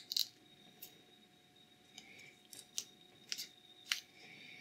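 Aluminium foil pouch of a small lithium-ion cell being peeled and torn open by hand: faint crinkling with a scatter of short, sharp ticks and crackles.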